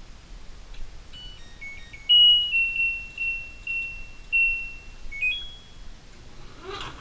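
LG dryer control panel playing its electronic chime tune: a few quick short beeps at different pitches, then a series of longer notes, ending in a brief rising pair of tones. A short thump comes near the end.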